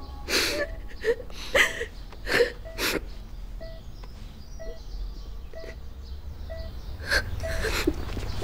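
A young woman crying: a run of short sobbing, catching breaths in the first three seconds, more again near the end.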